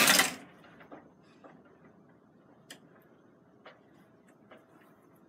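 Doors slammed shut with a loud, brief bang right at the start, followed by faint, irregular clicks about once a second.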